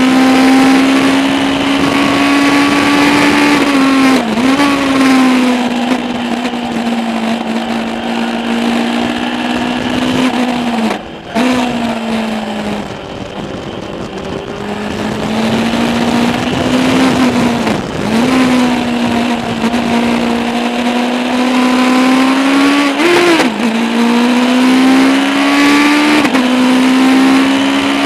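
Legends race car's Yamaha four-cylinder motorcycle engine at high revs, heard from inside the cockpit under race load. The pitch holds steady, with brief dips at gear changes and lifts. About eleven seconds in, the engine drops off sharply and stays quieter for a few seconds before building up again.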